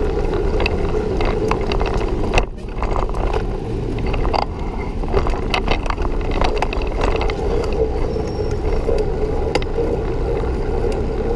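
Bicycle being ridden along a paved path: steady wind noise on the microphone and tyre noise, with scattered small clicks and rattles from the bike over bumps, and road traffic alongside.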